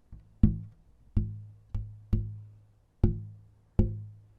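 Wooden pieces for a sound box being tapped one after another, about seven sharp knocks in a row. Each knock rings a low note called G that fades away before the next.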